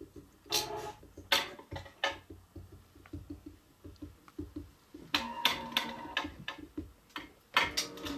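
A series of sharp clicks and knocks at irregular intervals, with faint quick ticking between them.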